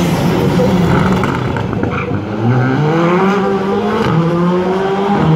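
Rally car engine running hard on a stage. Its note climbs as it accelerates from about two and a half seconds in, and drops at a gear change about four seconds in.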